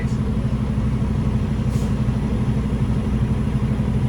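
Semi truck's diesel engine running steadily with a low, even drone, heard from inside the cab.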